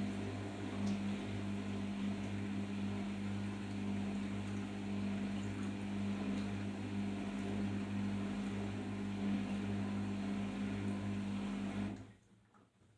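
Arçelik 5083 washing machine running with a steady electric hum over a wash of noise, then cutting off abruptly near the end.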